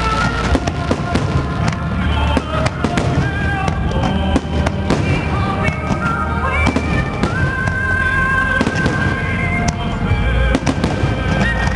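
Fireworks finale: shells bursting and crackling in rapid succession, over music playing with the display.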